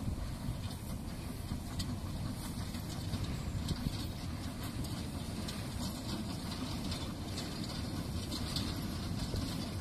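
Distant narrow-gauge steam locomotive working along the line, heard under a steady low rumble of wind on the microphone.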